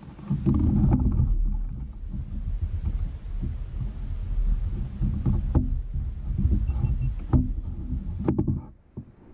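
Low, uneven thumping and rumbling of a Nucanoe Frontier 12 plastic fishing kayak's hull as the angler shifts his weight and leans forward to handle his rods, with a few sharp knocks of gear.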